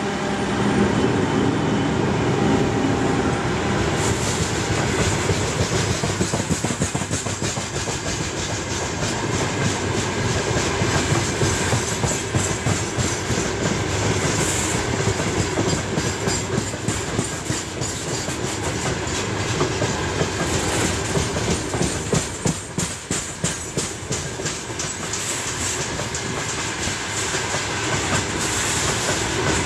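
Freight train of open-top gondola wagons rolling past close by: a steady rumble of steel wheels on rail, with a rapid clickety-clack of the wheels over the rail joints.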